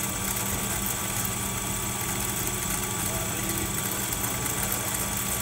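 Berkley electric line-spooling machine running with a steady hum as it winds fishing line onto a reel.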